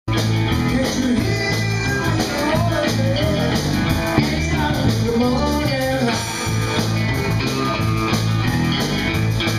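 A live blues band playing at full volume: electric guitars, bass guitar and a drum kit keeping a steady beat.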